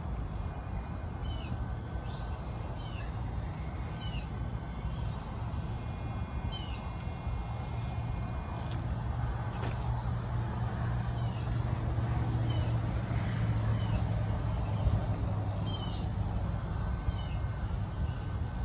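RC rock crawler's electric motor and geared drivetrain running at low speed as it creeps down steep wooden steps, a steady low hum that swells a little partway through. Short high chirps recur about once a second over it.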